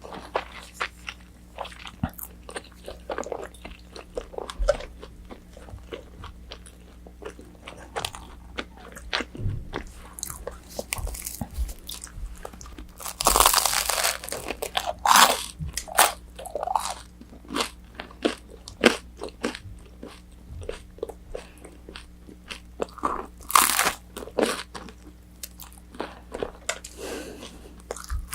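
Close-miked eating of takeout orange chicken: crunchy bites into the fried batter and steady chewing, with louder bouts of crunching about halfway through and again a few seconds before the end.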